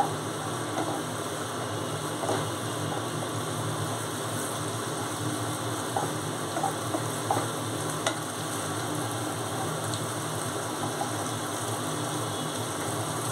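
Crumbled chhana frying in spice masala in a kadai, sizzling steadily while a wooden spatula stirs and mixes it. A few short taps and scrapes of the spatula against the pan.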